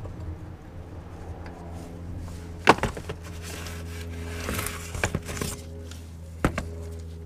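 A few sharp metallic clicks and knocks of hand tools on the VAQ front differential's plug as it is fitted, over a steady low hum.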